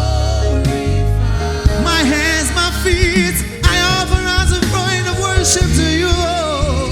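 Gospel worship music: sung vocals with vibrato over instrumental backing with a heavy, sustained bass.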